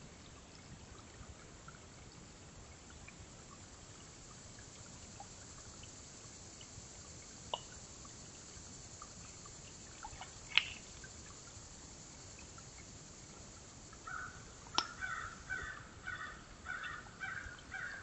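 A crow cawing in a quick series of about eight calls in the last few seconds, over a steady hiss. A few single sharp clicks come earlier.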